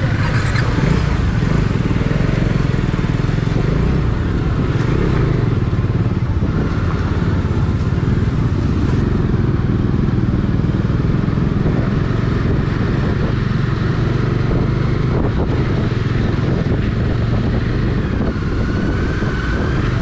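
Motorcycle engine running steadily while riding on the road, a constant hum with road and wind noise over it.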